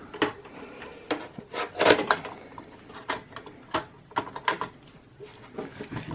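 Irregular clicks and knocks of plastic and metal parts being handled inside an opened small desktop PC case as a graphics card is fitted, the loudest about two seconds in.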